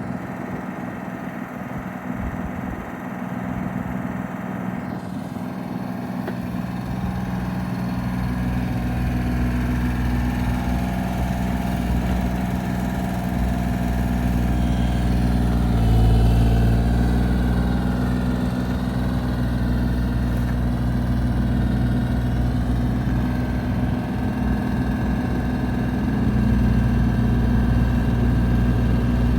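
Bobcat E32 mini excavator's diesel engine running at a steady idle, slowly growing louder, with a brief swell about halfway through.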